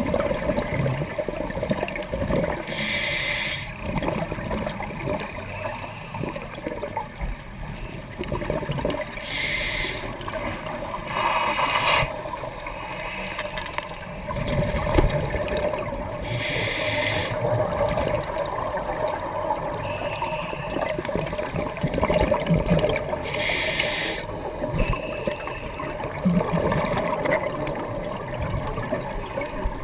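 Underwater recording of a scuba diver breathing: exhaled bubbles rush out of the regulator in bursts about a second long, every six seconds or so, over a steady hum of water noise.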